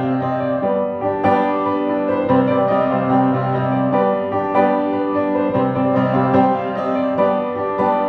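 Piano played with both hands: a piece of ringing chords, new notes and chords struck about once a second and held over one another.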